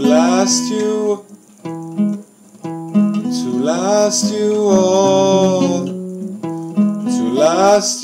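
Acoustic guitar played in a slow chord rhythm while a man sings along, holding one long note in the middle.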